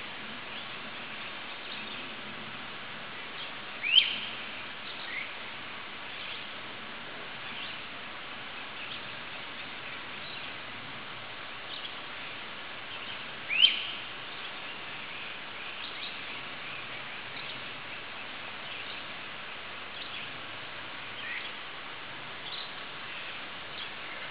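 Two loud, sharp upward-sweeping bird chirps, about ten seconds apart, over a steady background hiss, with fainter short bird chirps scattered throughout.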